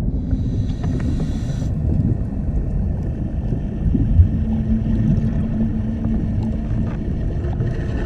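Steady low underwater rumble with a faint hum, and a single thump about four seconds in.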